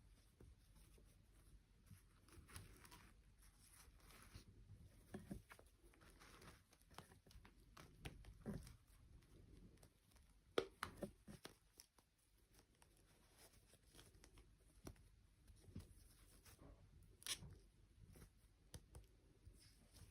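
Near silence with faint, scattered handling noises: soft clicks and rustles, sharpest about ten and a half seconds in and again near seventeen seconds.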